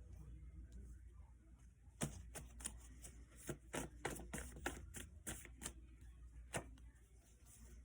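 Deck of tarot cards being shuffled: a run of quick, sharp card clicks and slaps starting about two seconds in and stopping a little before the end.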